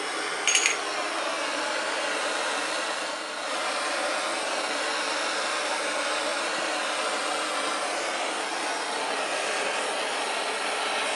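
Handheld gas torch burning with a steady hissing rush as it heats the small end of a connecting rod. There are a few sharp clicks near the start, and the level dips briefly about three seconds in.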